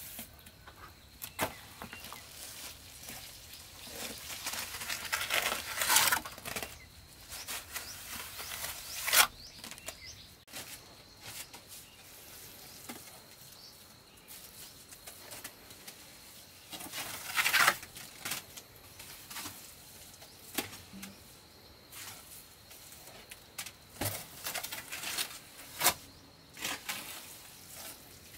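Steel trowel scooping and scraping wet cement mortar and spreading it onto a brick wall: irregular scrapes, slaps and clicks, a few of them sharply louder, over a faint steady high tone.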